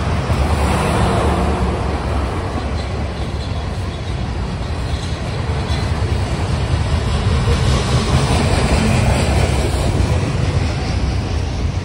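Freight cars of a CSX manifest train, mostly covered hoppers, rolling past close by: a steady, loud rumble of steel wheels on rail.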